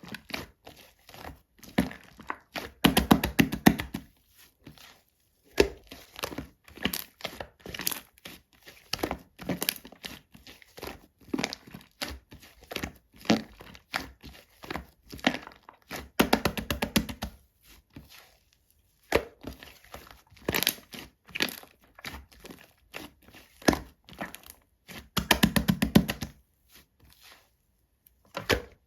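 Shaving-foam slime being squished and pressed, giving sticky crackling clicks and pops that come in quick runs, densest about three, sixteen and twenty-five seconds in.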